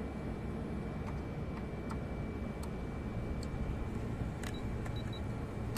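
Small sharp clicks of a Kyoritsu digital clamp meter's rotary selector dial being turned and handled, with a few short high beeps from the meter near the end, over a steady low rumble.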